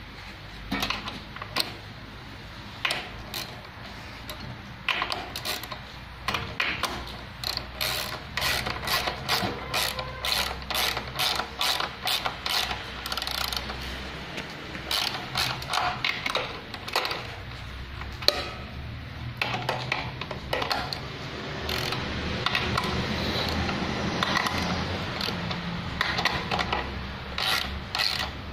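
A ratcheting wrench clicking in quick runs of clicks as it tightens the mounting bolts of a sewing machine servo motor's bracket.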